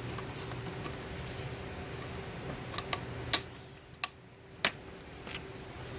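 About half a dozen light, sharp clicks and taps, bunched in the second half, from a stick of RAM being handled, over a steady low hum.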